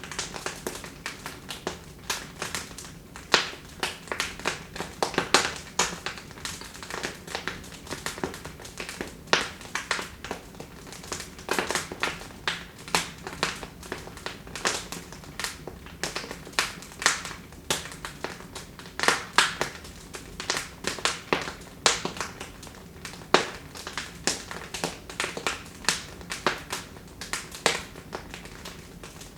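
Wood fire crackling in a fireplace: irregular sharp pops and snaps, several a second, over a faint steady hiss of the burning logs.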